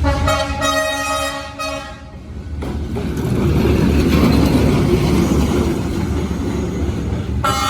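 Horn of the D12E-650, a Czech-built ČKD diesel locomotive, sounds one ear-piercing blast of nearly two seconds. It is followed by the steady noise of the running train, and the horn starts again near the end. The horn has a shrill tone unlike the usual horn of these Czech locomotives.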